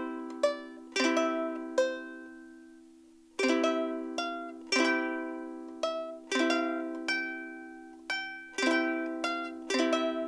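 Martin S-1 soprano ukulele strummed chord by chord, each chord left to ring and fade before the next. One chord rings on for about a second and a half before the strumming picks up again.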